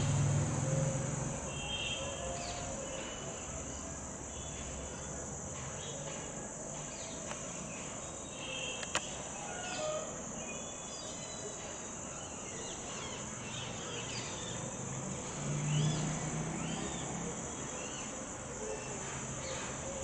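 Steady high insect drone with scattered short bird chirps and whistles. A low rumble is loudest at the start and swells again about sixteen seconds in, and there is a single sharp click about nine seconds in.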